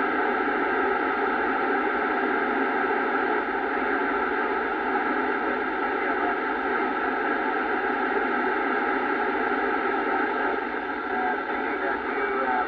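Steady FM hiss from a Kenwood TS-790 transceiver's speaker, tuned to the ISS voice downlink on 145.800 MHz, with no clear voice coming through the noise.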